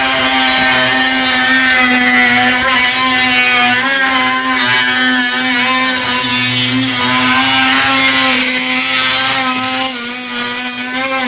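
Handheld power tool cutting a plastic valance, running steadily with a machine whine whose pitch wavers slightly as it is worked through the plastic, over a loud hiss.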